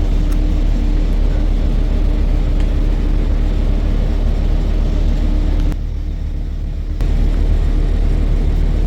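City bus running along the road, heard from inside the passenger cabin: a steady low engine and road rumble with a faint hum. It drops abruptly about six seconds in and comes back about a second later.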